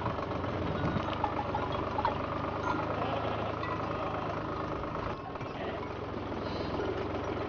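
Steady engine drone of a vehicle running, with a short break about five seconds in.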